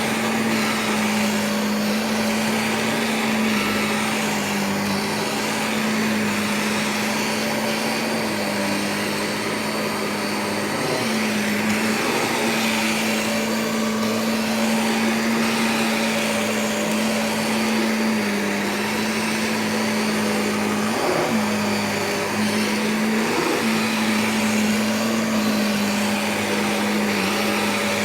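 Vacuum cleaner running steadily. Its motor hum and rushing airflow shift slightly in pitch now and then as it works the floor.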